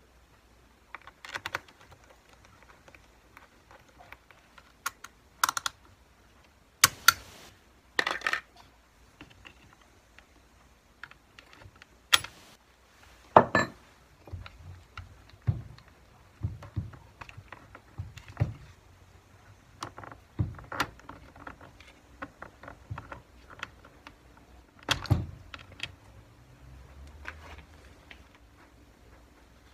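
Irregular clicks, clinks and small knocks of a hand tool and metal and plastic parts as the carburetor is worked loose and lifted off a Stihl MS390 chainsaw, with a few sharper knocks among them.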